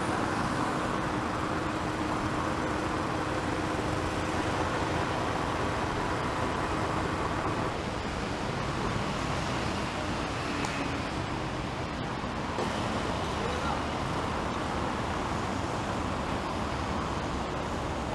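Steady road traffic noise from passing cars, with indistinct voices in the background.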